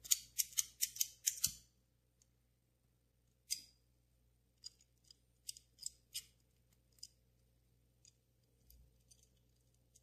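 Small metal clicks from a vintage Ronson gas lighter's flint and wheel parts being handled with tweezers during reassembly: a quick run of about six sharp clicks in the first second and a half, then scattered single clicks.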